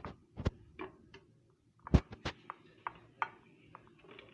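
Light, irregular clicks and knocks of a couscoussier steamer being handled as garlic-stuffed dried figs are set into it. There are about ten taps, with one sharper knock about two seconds in.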